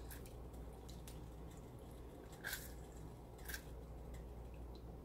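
A lemon squeezed by hand over a pot of sauce: faint squishing of the fruit and juice dripping into the pot, with two short, sharper sounds about a second apart past the middle.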